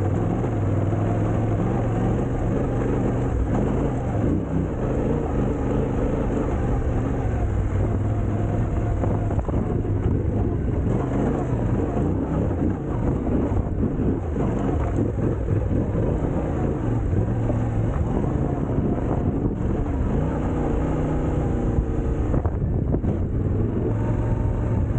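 Vehicle engine running steadily on the move over a gravel road, with a constant rushing noise.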